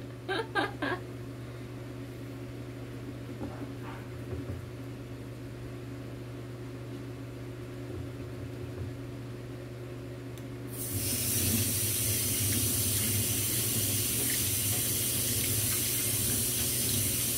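Kitchen tap turned on about eleven seconds in and running steadily into a stainless steel sink while hands are rinsed under it. Before that, only a low steady hum.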